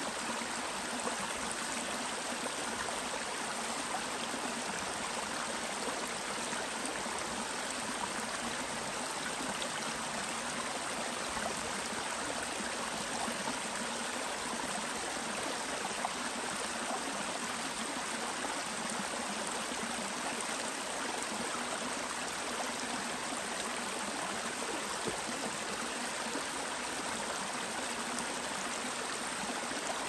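Shallow rocky creek flowing steadily: an even, unbroken rush of running water.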